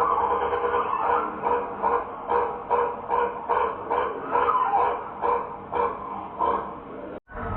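A bird's call played back slowed down, now low and bark-like, repeated in quick short notes about three times a second. It cuts off abruptly near the end.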